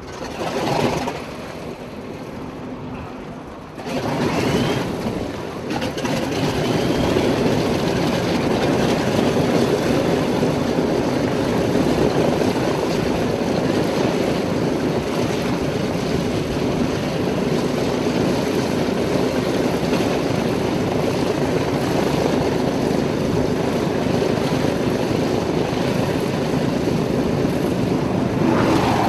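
Grumman F7F Tigercat's twin Pratt & Whitney R-2800 radial engines running at power as the aircraft flies its display. The sound swells about four seconds in, then holds as a steady loud drone.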